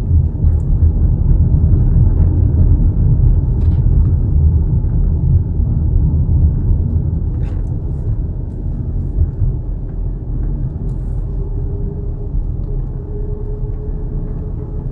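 Low, steady road and engine rumble inside a moving car's cabin, with a faint steady hum joining in over the last few seconds.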